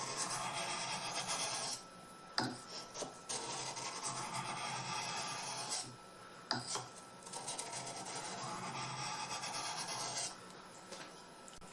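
Swedish carving knife blade being stroked along a Japanese water stone: a gritty rubbing in three long spells, with short breaks and a few clicks between them.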